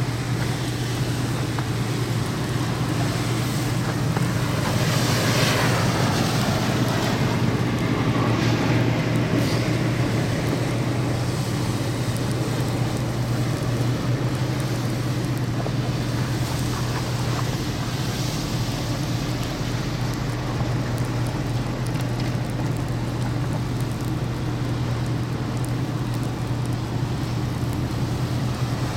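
A vehicle engine running with a steady low hum, under gusty wind blowing on the microphone.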